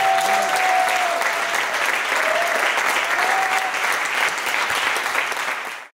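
Audience applauding, a dense even patter of many hands clapping. A steady tone carries over it for about the first second and a half, and two brief tones come later. The applause fades out right at the end.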